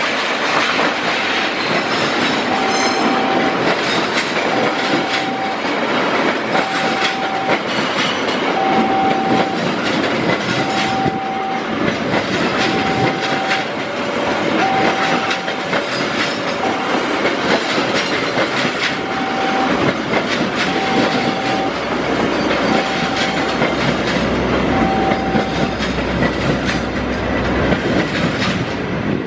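A passenger train hauled by a CC 206 diesel-electric locomotive passing close by: a loud, steady rush of wheels and engine with the clickety-clack of wheels over rail joints. A short electronic tone repeats about every two seconds, joined about halfway through by a second, lower tone that alternates with it.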